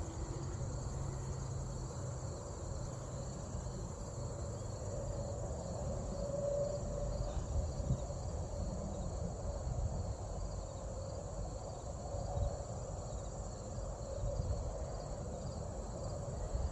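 Steady chorus of insects: a continuous high-pitched trill in two bands, the lower one faintly pulsing, over a low uneven rumble.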